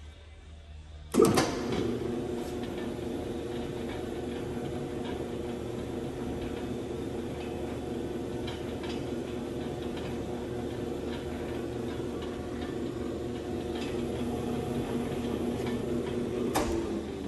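Hobart L-800 80-quart planetary mixer switched on with a click about a second in, then running steadily with an empty bowl, its motor and gear drive giving a hum of a few steady tones. Near the end a sharp click as it is switched off.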